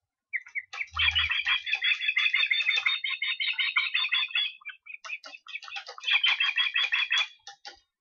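Osprey calling: a rapid run of short, high chirps, breaking off briefly around the middle and then starting again. A short low thump about a second in.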